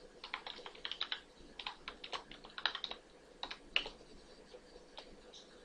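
Typing on a computer keyboard: quick runs of faint keystrokes for about four seconds, then one or two stray taps.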